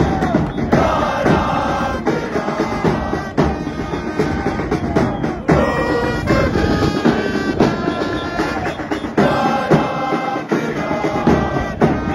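Football ultras singing a chant together, with drums beating under the voices.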